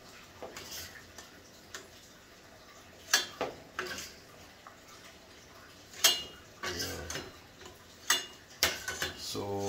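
Metal spoon clinking against a stainless steel pot as boiled carrots and potatoes are scooped out and dropped into a wooden bowl, a handful of sharp, irregular clinks with a brief ring.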